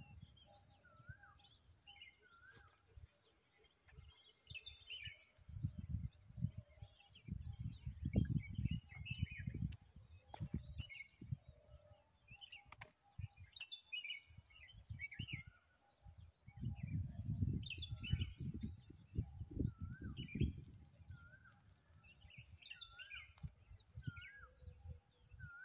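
Wild birds calling and chirping, among them one bird repeating a short wavy whistled note in bouts. Spells of low, gusty rumble from wind on the microphone are the loudest sound, about a third of the way in and again past the middle.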